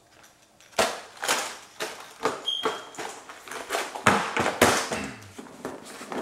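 Clear plastic tackle trays being handled: a lid clicked shut, a tray set down on a table and another tray moved, making a string of sharp plastic clicks and knocks.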